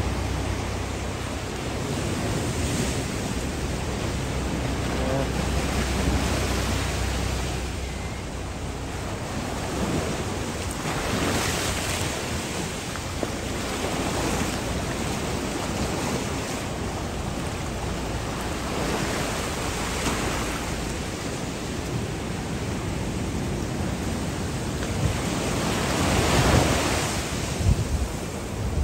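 Rough sea at high tide: waves breaking and surf washing over rocks and sand. The roar is continuous and swells louder every several seconds as each wave comes in.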